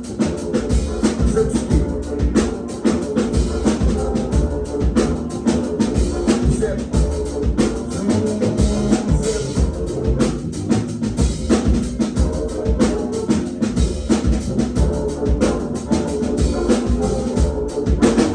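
Live rock band playing an instrumental passage without vocals: a drum kit keeps a busy, steady beat under low bass and other amplified instruments.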